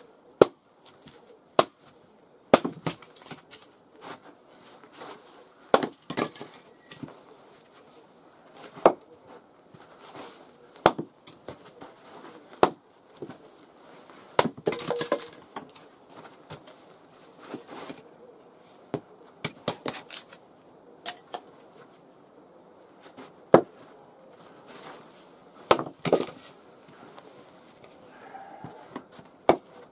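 Axe splitting firewood on a chopping block: about twenty sharp, irregular chops and knocks, a few of them much louder than the rest.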